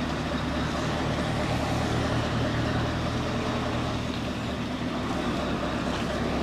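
Lorry engine running steadily, a low even hum heard from inside the cab.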